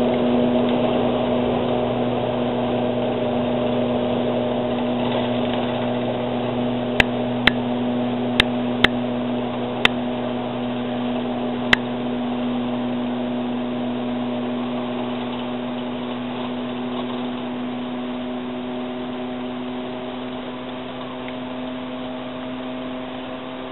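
Schynige Platte Railway electric rack train's steady motor hum, one low tone with higher tones above it, fading slowly. About a third of the way in, six sharp clicks come over a few seconds.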